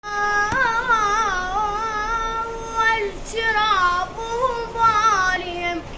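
A high solo voice singing unaccompanied in Iraqi tarab style, with heavily ornamented, wavering melismas over two phrases and a breath about three seconds in.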